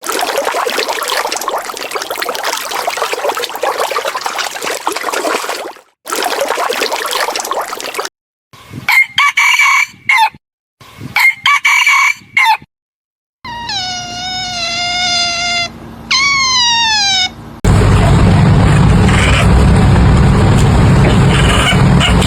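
Chickens in a series of short clips that cut abruptly: a stretch of dense flock noise, then short bursts of clucking, then a rooster crowing with one long call falling at its end and a shorter falling call after it, followed by loud dense noise.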